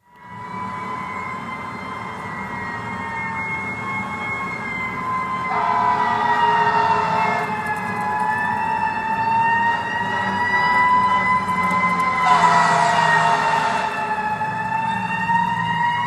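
Several fire engine sirens wailing together in a city street, their slow rising and falling pitches overlapping, over a low rumble. The sound fades in at the start.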